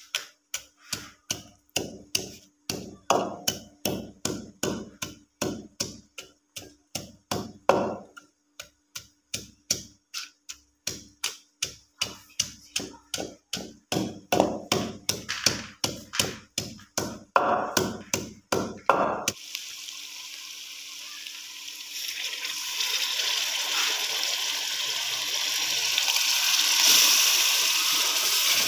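A wooden pestle pounding garlic and seeds in a clay mortar, with sharp strikes about three a second. About two-thirds of the way through it gives way to oil sizzling in a frying pan, growing louder near the end.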